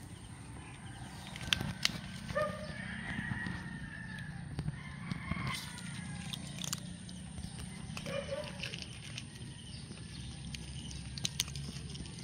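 Six-week-old kittens crunching dry kibble from plastic plates: scattered sharp clicks. A short animal call is heard about two seconds in and again about eight seconds in.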